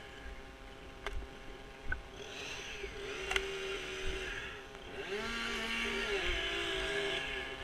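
An engine running steadily, with a few short clicks or knocks.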